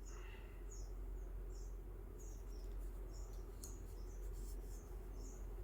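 Faint high-pitched chirps repeating about once every second over a steady low hum, with a few light clicks past the middle.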